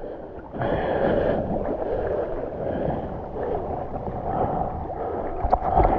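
Water swishing and lapping around an 11'10" stand-up paddleboard as it is paddled along, with the paddle dipping through the water. A few light clicks come near the end.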